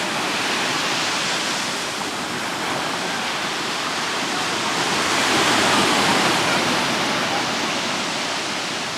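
Ocean surf washing onto the beach, a steady rush that swells louder about five to six seconds in as a wave comes in.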